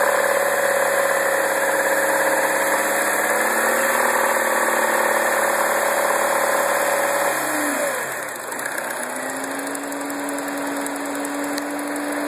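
2009 MINI Cooper's 1.6-litre four-cylinder engine running steadily with the rattle noise it is being recorded for. About eight seconds in, the engine pitch drops sharply and the sound gets quieter, settling into a lower steady tone that creeps up slightly.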